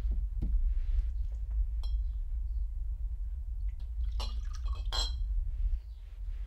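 Liquor poured from a cut-crystal decanter into a glass tumbler, with glass clinking on glass: one clink about two seconds in, then a cluster of ringing clinks about four seconds in and a louder one about five seconds in, over a steady low hum.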